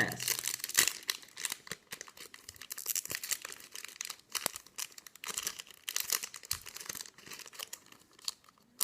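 A foil booster pack of trading cards being torn open and crinkled, in quick irregular crackles, then the cards being slid out.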